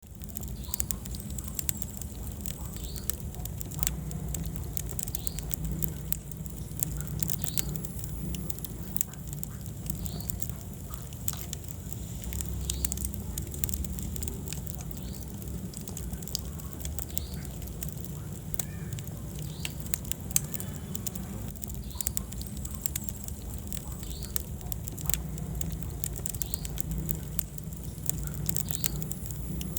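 Wood fire burning in a fireplace: a low steady rumble of flames with frequent irregular sharp crackles and pops.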